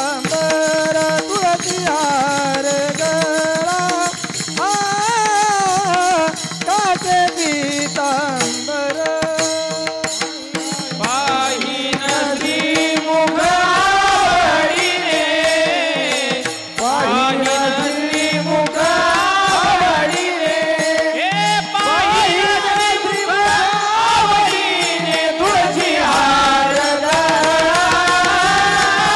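A man singing a Marathi Varkari abhang tune in kirtan style, with small hand cymbals (taal) clashing in rhythm, a drum, and a steady drone underneath.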